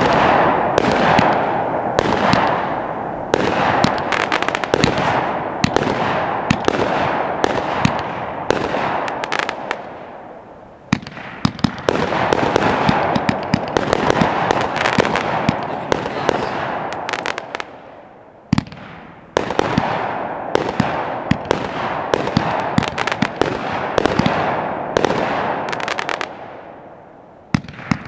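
A Fisherman 70-shot, 500-gram firework cake firing in quick succession: a steady stream of launch thumps and star bursts over a dense crackle, easing off briefly three times before picking up again.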